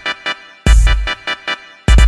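Background music: held chords over heavy bass hits, a new hit about two-thirds of a second in and another near the end.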